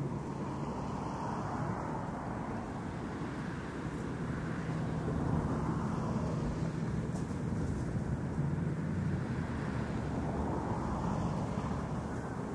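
Twin outboard motors on a center-console boat running steadily at planing speed, a low engine hum that swells slightly in the middle as the boat passes.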